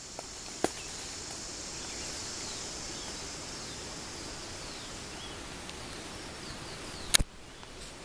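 Rainforest ambience: a steady high insect chorus over an even rush of background noise, with a few faint chirps. Two sharp clicks, a small one about half a second in and a louder one near the end.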